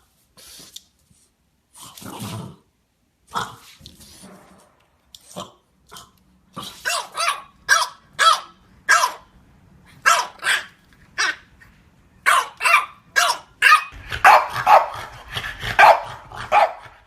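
French bulldogs barking: scattered single barks at first, then a quicker run of about two barks a second from around seven seconds in. Near the end the barks crowd together into a dense, overlapping volley.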